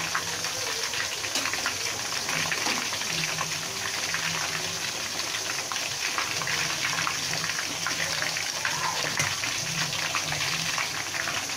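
Chicken pieces in a galangal spice coating deep-frying in a wok of hot oil: a steady, dense sizzle and crackle of bubbling oil.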